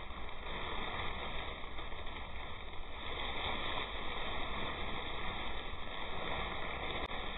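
Steady noise inside a car, with plastic shopping bags rustling as a hand digs through them.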